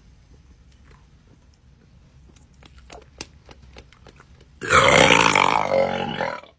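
One long, loud burp of nearly two seconds, starting about two-thirds of the way in, the gas brought up by gulped fizzy soda in the Sprite challenge. Before it, a few faint clicks.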